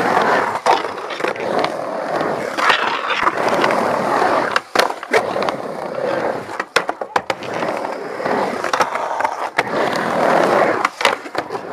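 Skateboard wheels rolling over the concrete ramps of a skatepark, a steady rumble broken by frequent sharp clacks from the board and trucks.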